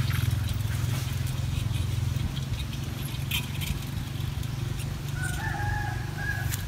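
A steady low hum with faint scattered ticks, and a single drawn-out pitched animal call lasting about a second, about five seconds in.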